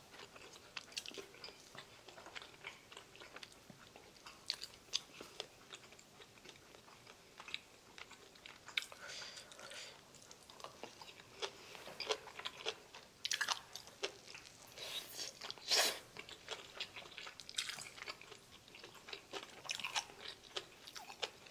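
Close-miked eating: irregular chewing and crunching of food, with scattered sharp clicks as chopsticks pick at the dishes.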